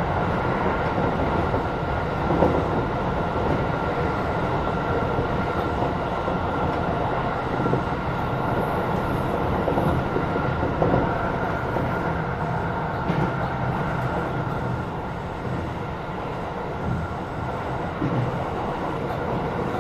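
Tokyo Metro 16000 series electric train running between stations: a steady rumble of wheels on rail with a faint high whine that fades out about halfway through, and a few brief knocks.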